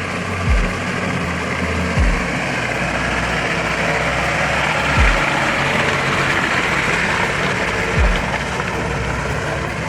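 Steady rushing noise of a four-wheel drive travelling along a wet track, under background music that lands a deep, falling bass thump about every three seconds.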